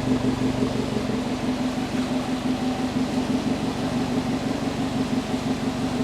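2014 Subaru WRX's turbocharged flat-four engine idling steadily, with an uneven low pulsing in its note.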